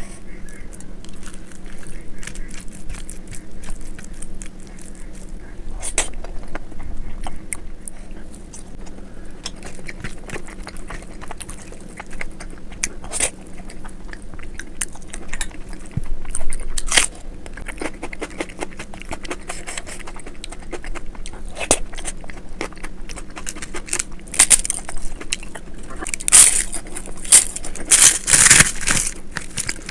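Mouth chewing of dal khichdi and hand-mixing of the rice, with scattered sharp clicks and a run of crisp crackles near the end as papad is crushed into the rice.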